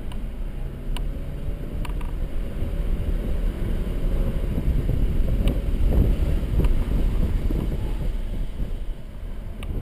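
Mercedes-Benz C300 4Matic heard from inside the cabin while driving on a wet track: engine running under a heavy rumble of tyre and road noise that swells in the middle, with a few faint clicks.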